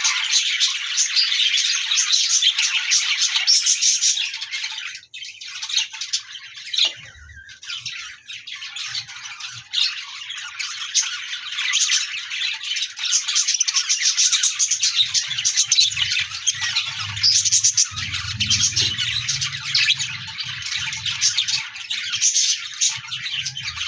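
Several budgerigars chirping and warbling together in a dense, continuous chatter. The chatter thins out for a few seconds about five seconds in, then picks up again.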